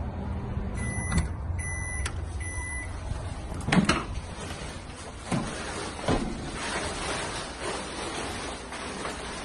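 Microwave oven finishing: its low hum fades about a second in and it gives three short electronic beeps. A loud clunk follows near four seconds, then a few knocks and rustling.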